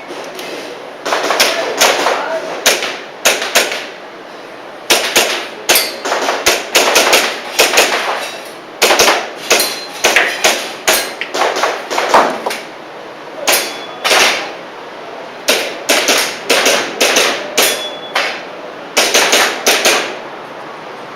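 Airsoft pistol being fired in quick strings of several sharp shots, with short pauses between the strings, during a timed practical-shooting course of fire.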